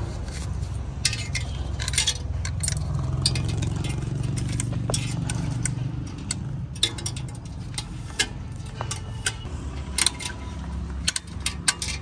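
A thin metal tool clicking and scraping against the cylinder cooling fins of an Eicher 485's air-cooled engine as packed straw is picked out of them, in many short, irregular clicks over a steady low rumble. The straw is clogging the engine's air cooling.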